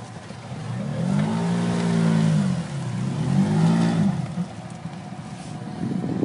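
ATV engine revving up and back down twice, each swell lasting about a second and a half.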